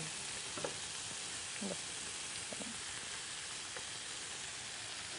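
Chicken-thigh shish tawook skewers, with peppers and tomatoes, sizzling steadily in a hot grill pan as they are turned with tongs.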